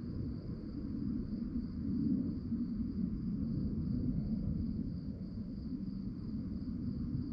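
Crickets chirping in a steady high trill, over a louder low rumbling noise underneath.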